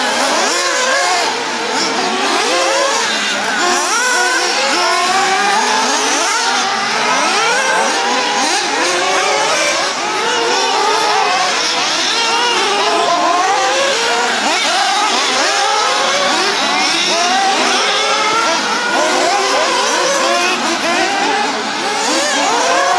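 Several 1:8 scale nitro off-road RC buggies racing together, their small engines whining and revving up and down constantly in overlapping pitches.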